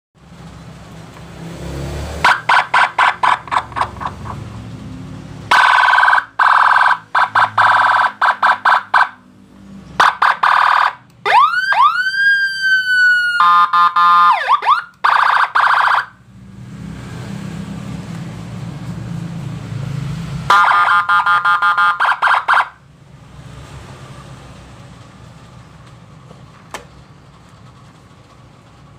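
An electronic motorcycle escort siren module played through a small horn speaker, cycling through several tones. It gives loud bursts of rapid pulsing beeps, a tone that sweeps up and slowly falls in the middle, and fast chirps. Quieter gaps with a low hum fall between the bursts.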